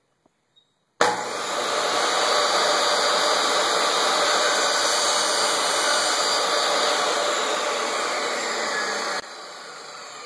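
Table saw switched on about a second in and running steadily at full speed, then switched off near the end, its motor and blade winding down with a falling whine.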